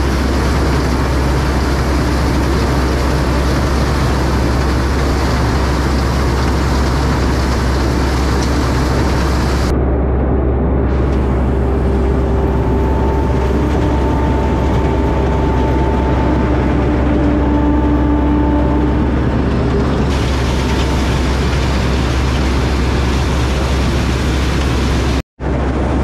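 Rice combine harvester's engine and reaping machinery running steadily under load while cutting paddy, heard up close from the operator's seat, with a deep constant hum. The sound breaks off for an instant near the end.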